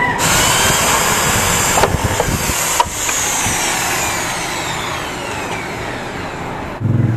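Electric drill running under load as it bores into a scooter's plastic front fender. It starts sharply, is let off for a moment twice about two and three seconds in, and cuts off abruptly near the end.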